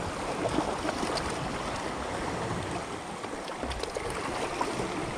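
Seawater washing and lapping steadily along the shore.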